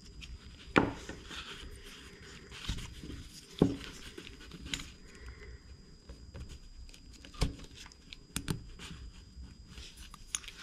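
Handling noise from a small nitro engine and its clutch parts being worked by hand, with several sharp clicks and knocks as a clutch shoe and its spring are fitted onto the flywheel.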